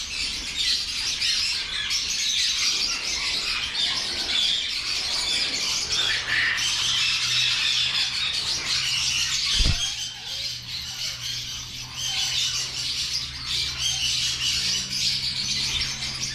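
A flock of lovebirds chattering: a dense, unbroken mass of high-pitched chirps and squawks, with a single low thump about ten seconds in.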